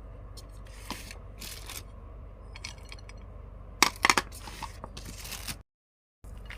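Crisp crunching and cracking of crunchy cookies in several short clusters, the loudest about four seconds in, over a steady low hum.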